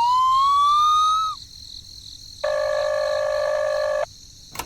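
Cartoon sound effects: a rising whistle-like tone that stops about a second in, then, after a short pause, a steady buzzing tone held for about a second and a half.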